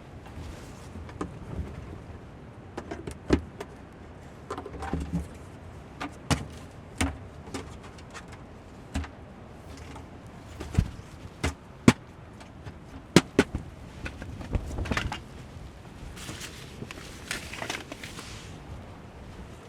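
Irregular sharp clicks, clinks and knocks of camping gear being handled, with a brief rustle of fabric or material near the end.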